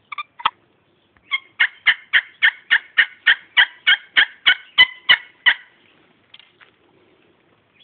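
Turkey yelps: two or three separate notes near the start, then a run of about fifteen evenly spaced sharp yelps, a little over three a second, that stops a second or so past the middle.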